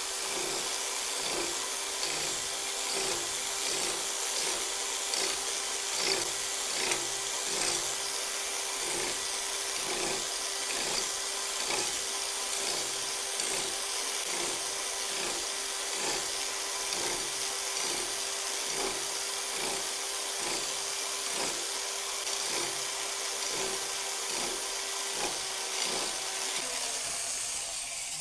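Power scraper running steadily, its blade driven across the metal gib of a Bridgeport mill in an even rhythm of about three strokes every two seconds, scraping down the high spots marked with blue.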